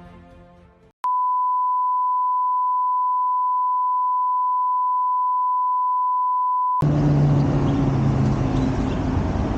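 Music fades out, then a steady pure beep tone at about 1 kHz sounds for about six seconds. It cuts off abruptly into street ambience with passing traffic.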